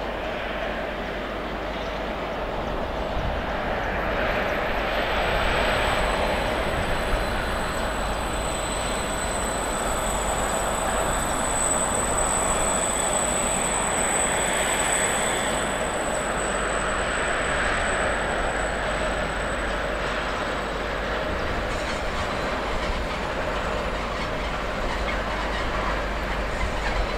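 Freight train of tank wagons hauled by two Hectorrail locomotives rolling past, the wagons' wheels rumbling on the rails. Through the middle of the pass a high, steady wheel squeal rings over the rumble, then fades.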